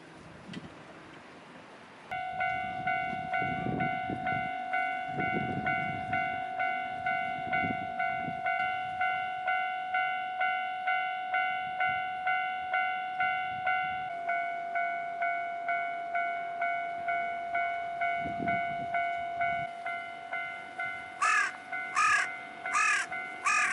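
A Japanese railway level-crossing warning bell starts about two seconds in and rings its repeating electronic "kan-kan" clang in a steady beat of a little under two strikes a second. Its pitch drops slightly about halfway through. Near the end a crow caws four times over the bell.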